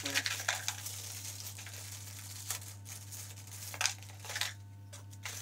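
Packaging rustling and crinkling as small mounting hardware (a U-bolt, washers and nuts) is handled in a small cardboard box, with a few sharper rustles near the start and about two and a half and four seconds in. A steady low hum runs underneath.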